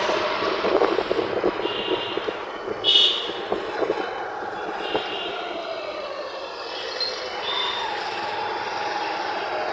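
Busy town street traffic: vehicles running past with short high-pitched horn beeps, the loudest about three seconds in.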